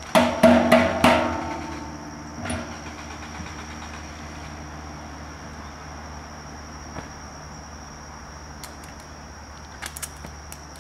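Four loud ringing bangs in quick succession right at the start, then a fainter one a couple of seconds later, over a steady high-pitched drone of insects.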